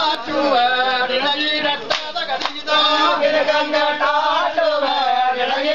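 A group of men singing an Ivorkali ritual song together in a chant-like unison while they dance, with a few sharp hits cutting through about two seconds in.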